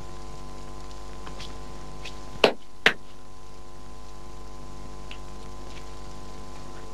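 Two sharp hand claps about half a second apart, over a steady electrical hum.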